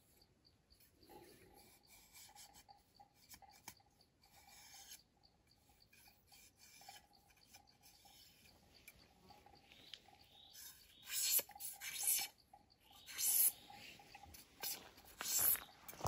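A knife blade scraping and shaving thin bamboo strips held in the hand. There are soft rasping strokes at first, then a run of louder, sharper scraping strokes in the last third.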